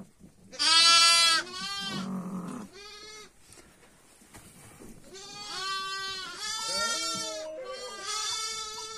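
Sheep bleating, newborn lambs among them: one loud bleat about half a second in, two or three shorter ones after it, then a run of bleats in the second half.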